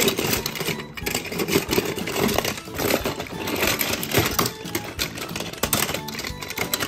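Die-cast toy cars clattering and clinking against each other and a plastic storage bin as a hand rummages through the pile, a rapid irregular jumble of small metallic clicks.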